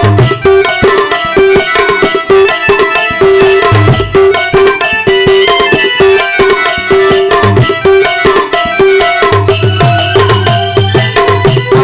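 Instrumental interlude of an Odia Krishna bhajan: an electronic organ plays a melody over a repeated held note, with fast tabla strokes and deep drum-pad hits that come in several times.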